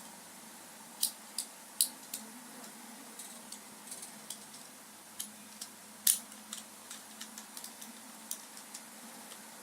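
Irregular small plastic clicks and taps, about a dozen, the loudest about six seconds in, from handling the parts and packaging of a Tobot Mini W transforming car-robot toy.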